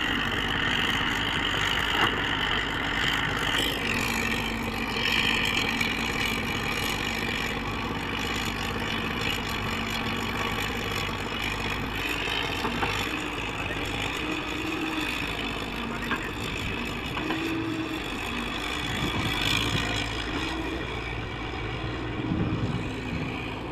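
Diesel engine of a JCB tracked excavator running steadily, with a few small knocks and slight shifts in engine note.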